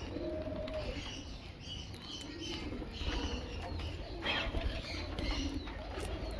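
Birds calling, with a low cooing call in the first second, fainter higher calls later, and scattered short clicks and rustles.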